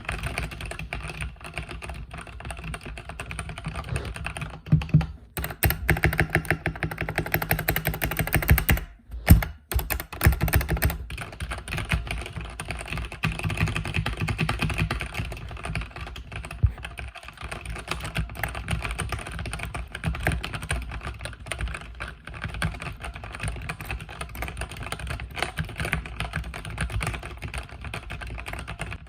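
Continuous fast typing on a mechanical keyboard with red (linear) switches: dense, irregular key clacks, with a short pause about nine seconds in.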